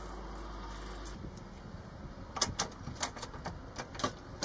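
Sharp metallic clicks and clacks, about eight over the last two seconds, as a small blue practice bomb is fitted and latched onto an aircraft's bomb rack. A steady low background noise comes before them.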